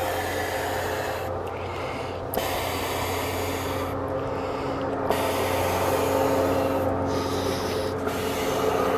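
An inflatable PVC outrigger float being blown up by mouth through its valve: long breaths of about two seconds each, with short pauses to inhale between them. The vinyl rubs as the float fills.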